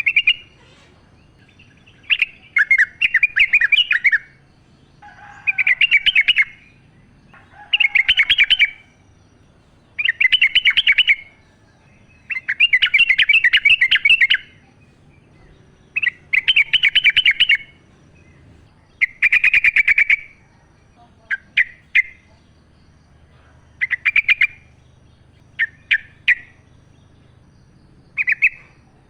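Yellow-vented bulbul (trucukan) singing: short, bubbling, chattering phrases about every two seconds, becoming shorter and sparser near the end.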